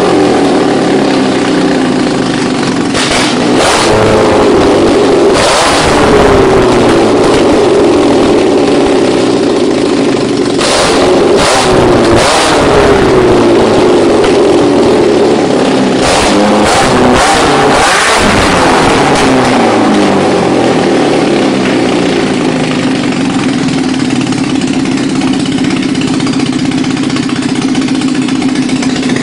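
VW 1.6 16-valve four-cylinder engine on carburettors being revved by hand at the throttle linkage. It blips up and falls back about four times, then settles to a steady idle for the last third.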